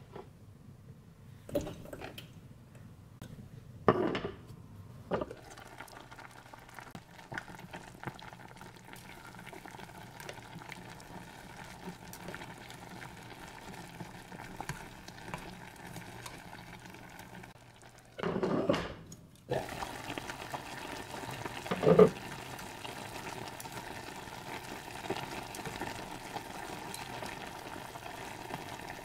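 Sukiyaki simmering and bubbling in a black pot, stirred with chopsticks, with several knocks against the pot in the first few seconds and one sharp knock about three-quarters of the way through. The bubbling gets louder about two-thirds of the way in.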